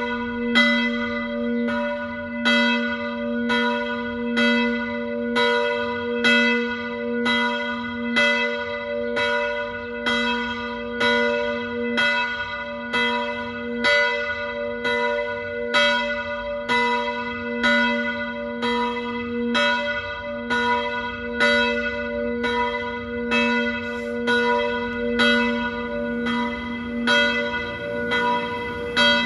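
Church bells ringing a full peal, a steady run of strokes following one another with no break, each one ringing on into the next.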